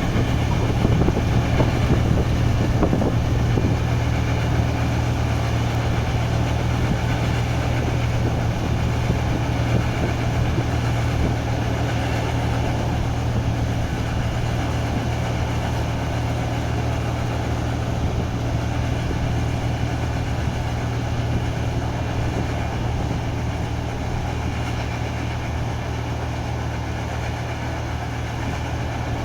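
Combine harvester running steadily, a constant low engine drone with mechanical noise over it, a little louder in the first few seconds.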